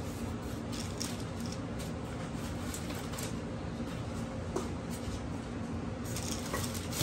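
Styrofoam packing pieces and plastic wrap being handled and lifted out of a box: scattered soft rustles, scrapes and taps over a steady low hum.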